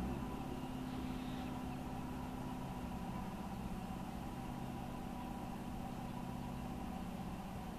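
An engine idling steadily, an even low hum.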